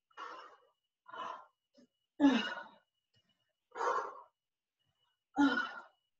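A woman breathing hard through her mouth, five big, audible breaths about a second apart, from exertion during a workout.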